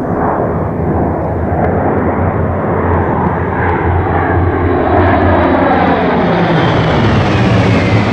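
Three P-38 Lightnings flying over in formation, their twin Allison V-1710 V-12 engines running together as one steady drone that grows louder, with the pitch falling over the last few seconds as they pass overhead.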